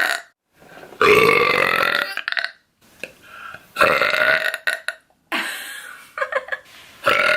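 Girls burping loudly. Drawn-out burps of about a second each come about a second in, about four seconds in and near the end, with a few shorter, quieter ones between.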